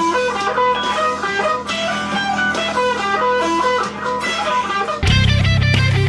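Electric guitar playing a quick practice phrase of single notes. About five seconds in it cuts abruptly to a different recording of electric guitar, louder and with much more bass underneath.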